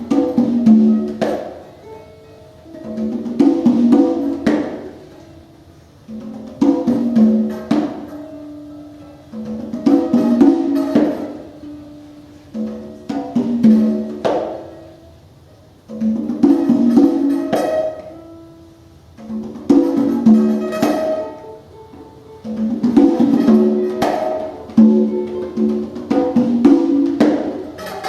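Free-improvised live music: hand-struck congas and plucked strings playing short repeating phrases that swell and fade about every three seconds.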